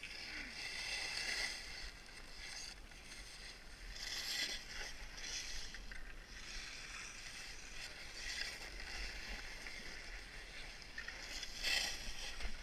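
Skis scraping and hissing over packed snow on a downhill run, the noise swelling and fading with each turn.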